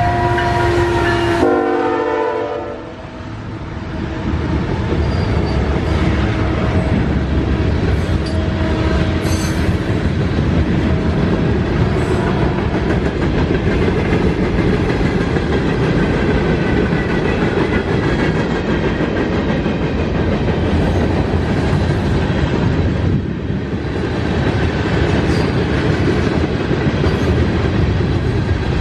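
Norfolk Southern freight train's locomotive horn sounding a chord that drops in pitch as the engine passes, then cuts off about two seconds in. Then a steady, loud rumble of freight cars rolling by, with wheel clatter on the rails.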